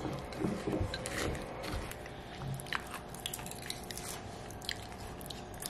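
Eating yogurt with granola: a spoon scraping and tapping a ceramic bowl in scattered short clicks, with chewing.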